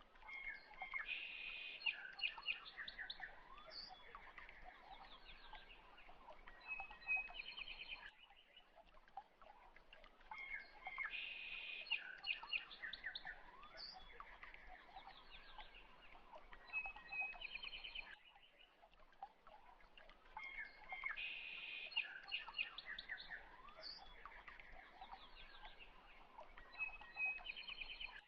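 Birds chirping and twittering, a short recording looped so that the same chirp pattern repeats about every ten seconds, three times over.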